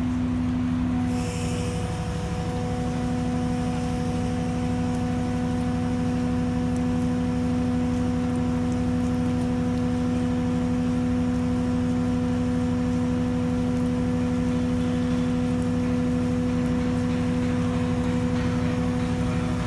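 Steady drone of a ship's engines and machinery, a low rumble with a constant hum. About a second in, a short hiss is heard and the hum briefly drops out.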